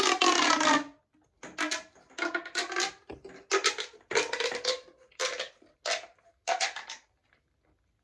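Mini pop tube, a corrugated plastic fidget tube, being pulled out and pushed back in: a pretty loud ribbed popping and whistling sound whose pitch slides as the ribs snap. It comes as a long stroke at the start, then about seven shorter strokes, and stops about a second before the end.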